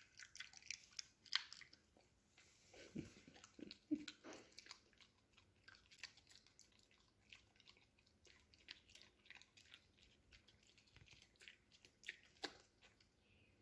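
Small dog chewing a dried rabbit ear: faint, irregular crunches and clicks of teeth on the chew.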